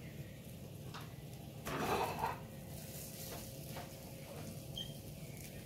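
Tabletop cooking and serving sounds around an electric grill-and-hotpot pan: a few light clicks of tongs, lid and dishes over a steady low background, with a short hiss about two seconds in.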